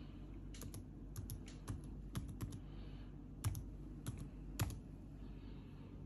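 Typing on an HP laptop keyboard: about a dozen separate key clicks as a word is typed, uneven in pace, with two louder strokes near the end before the typing stops.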